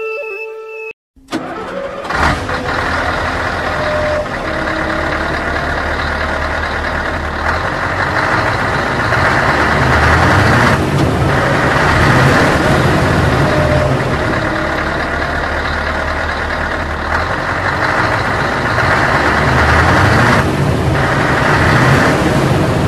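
Sound effect of a heavy vehicle's engine, starting abruptly about a second in and then running with a few slow rises and falls in pitch as it revs.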